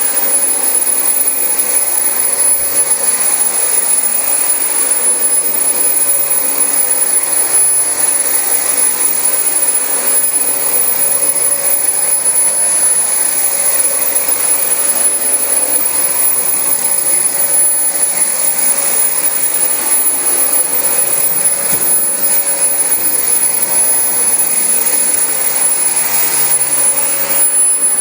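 Dyson DC25 upright vacuum cleaner running on carpet, a steady loud noise with a constant high whine and a lower hum that comes and goes.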